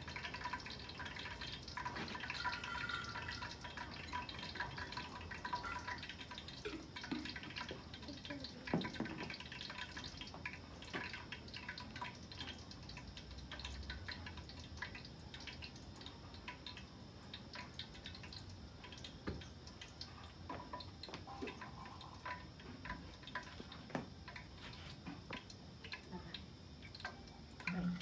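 Food frying in a lidded pot on a gas cooker: a steady sizzle dotted with many small, irregular crackles and pops.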